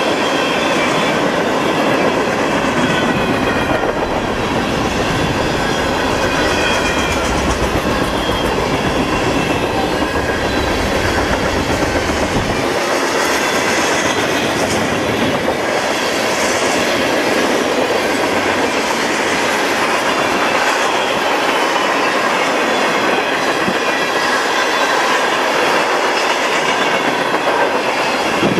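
Freight train cars rolling past steadily, their wheels clacking over the rail joints. A deep rumble underneath stops about halfway through.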